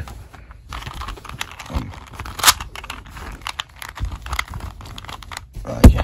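Plush puppets and a toy being handled and shuffled close to the microphone: rustling and scraping with scattered clicks, a sharp click about two and a half seconds in and a heavy thump near the end.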